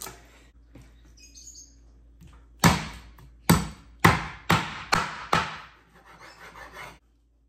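Meat cleaver chopping through chicken wings onto a wooden cutting board: six hard, sharp strikes in under three seconds, starting about two and a half seconds in.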